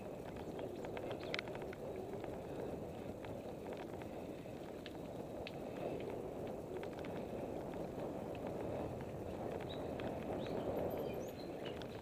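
Salsa El Mariachi Ti mountain bike rolling along a dirt singletrack: a steady low rumble of the tyres on the trail, with scattered light clicks and rattles from the bike.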